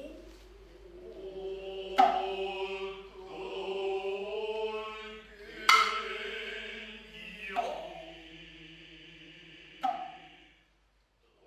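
Noh chant (utai), voices singing long held tones, broken by four sharp strikes typical of Noh hand drums. It fades out near the end.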